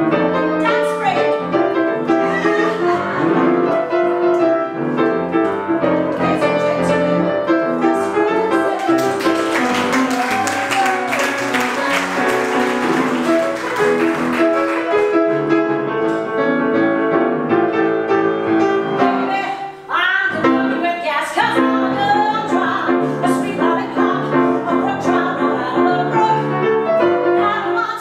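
A woman singing a Broadway show tune, accompanied on a grand piano. Near the middle the piano plays a busy passage of quick notes, and after a short dip in level the voice comes back strongly.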